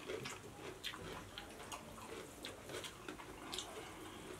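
Two people eating egg biryani by hand: faint, irregular wet smacks and clicks of chewing, with fingers mixing rice on steel plates.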